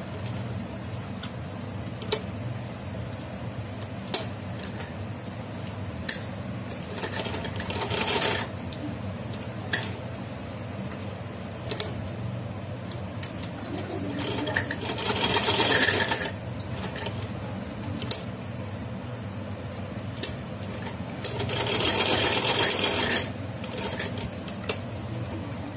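Old domestic sewing machine stitching cloth: a steady low running hum with a sharp click about every two seconds, and two louder rattling spells of a second or two, about midway and again near the end.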